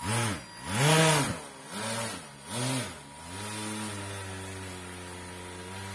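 Electric motor spinning a two-blade propeller on a homemade RC car. It is revved up and down in three short bursts, each a rising and falling whine, then held at a steady speed from about three seconds in.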